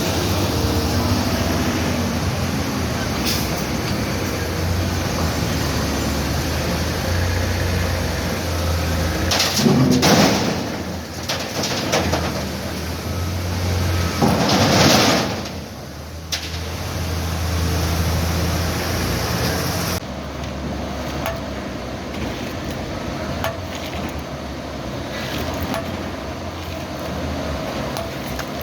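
Diesel engine of a Hitachi excavator running steadily, with two loud, rough noises lasting about a second each, roughly ten and fifteen seconds in.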